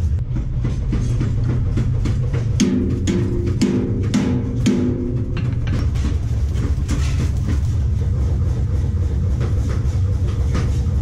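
Arc welding on a steel wheelbarrow frame: an irregular crackle from the arc over a steady low hum. Between about two and a half and five seconds in, a pitched tone pulses four times.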